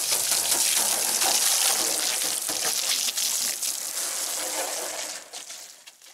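Water spraying onto a car's bodywork during a wash: a steady hissing spray that fades out near the end.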